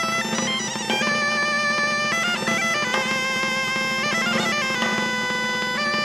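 Background music: a bagpipe melody over a steady drone.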